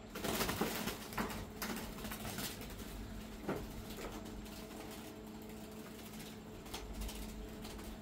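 Doves flapping and scuffling as they are caught by hand and put into a cage. The loudest clatter comes in the first second, with scattered knocks over the next few seconds, over a steady low hum.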